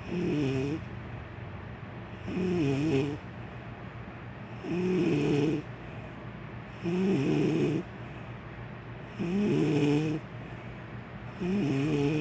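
A woman snoring in her sleep: six snores about two seconds apart, each a wavering, pitched snore lasting about a second.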